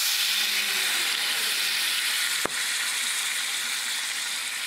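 Grappa splashed into a hot enameled Dutch oven over browned pork loin in olive oil and butter, sizzling loudly as the liquor hits the hot fat, then slowly dying down. A single sharp click about two and a half seconds in.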